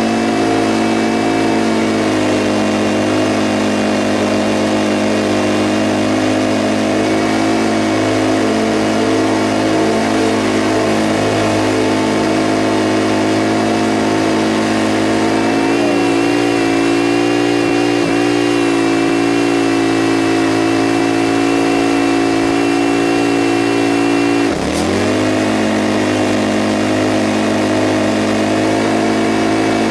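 Scag V-Ride stand-on mower's engine running steadily while mowing. Near the end its pitch briefly drops and comes straight back up.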